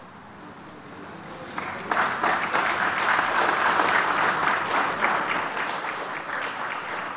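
Audience applauding, starting about one and a half seconds in and swelling quickly into dense, steady clapping that eases off slightly toward the end.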